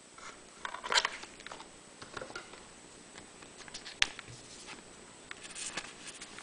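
A Pokémon trading card being slipped into a plastic card sleeve: soft scattered rustles and scrapes with small clicks, a louder rustle about a second in and a sharper click about four seconds in.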